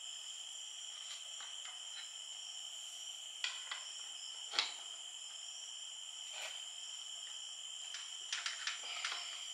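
Scattered light metal clicks and taps as the parts of a partly dismantled Honda Civic Hybrid CVT are handled, the sharpest about halfway through and a quick run of them near the end, over a steady high insect trill.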